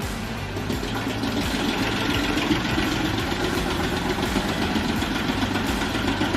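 Heavy machine's engine running steadily, a little louder from about a second in.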